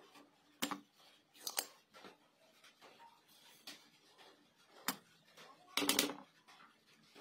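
Spring-loaded desoldering pump clicking as it is fired and cocked to suck molten solder off circuit-board joints, with a few sharp snaps and a louder clatter of clicks near the end.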